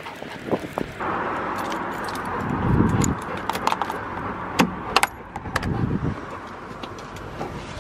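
A bunch of keys jangling as a key is worked in a front-door lock, with sharp metallic clicks around the middle. A steady rush of passing traffic sits underneath in the first half.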